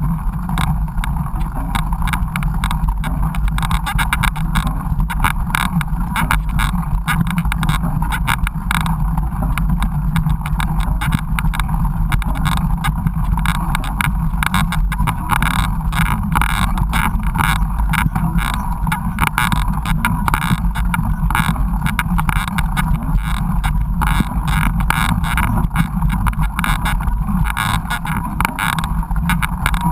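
Mountain bike ridden over a rough trail: continuous rumble and wind noise on the camera, with frequent rattles and knocks from the bike over the ground.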